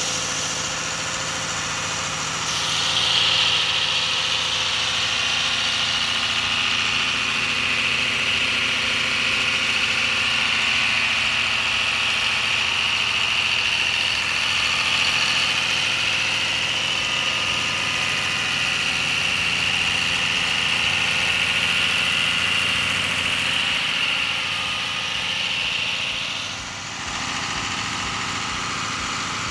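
Doosan diesel engine of a tracked excavator idling steadily, heard close up in the open engine bay. A high hiss rises over it about two and a half seconds in and drops away near the end.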